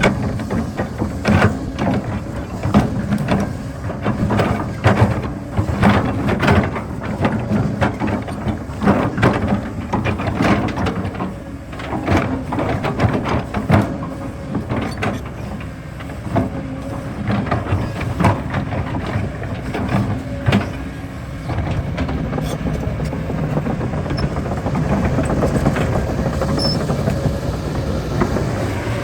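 Kobelco excavator's diesel engine running under load, with frequent sharp knocks and clanks of digging. In the last several seconds the knocks thin out and the engine note is steadier and a little louder.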